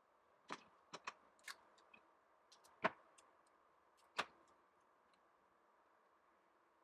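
Irregular sharp clicks and taps from handling stiff cardboard pieces and a utility knife on a wooden board, about nine in all, with two louder knocks about three and four seconds in.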